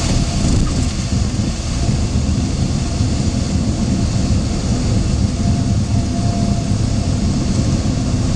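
Cessna 172's engine and propeller running with a steady, loud drone, heard from inside the cockpit as the aircraft rolls along the runway.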